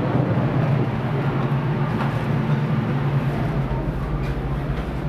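Steady low rumble and hum of shipboard machinery and ventilation, with a broad noisy hiss over it and no distinct events.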